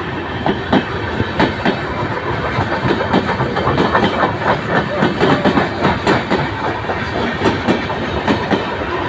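Humsafar passenger coaches running along the track, wheels clacking in quick irregular series over rail joints above a steady rumble. The clacks come thickest in the middle.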